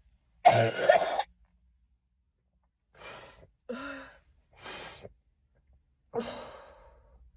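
Human coughing, sneezing and gasping: one loud burst about half a second in, then, after a second and a half of silence, three short breathy sounds and a longer one that trails off.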